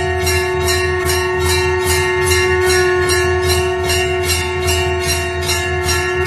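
Temple bell rung in a fast, even rhythm, about four strikes a second, its ringing tone sustained between strikes.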